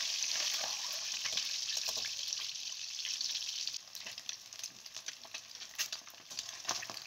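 Whole peeled boiled eggs frying in hot oil in a wok, making a steady sizzle. A little past halfway it drops to quieter, scattered crackles and pops as the eggs brown.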